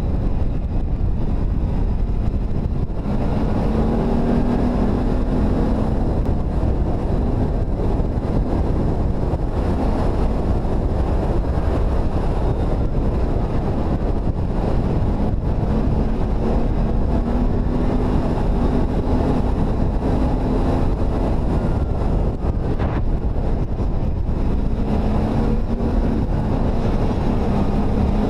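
ATV engine running under way, heavily buffeted by wind on the microphone; the engine note rises a few times as the quad accelerates.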